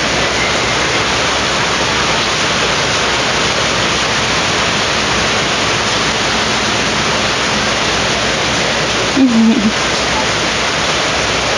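Pot of water boiling hard on the stove, with grated green papaya in it: a loud, steady rushing hiss.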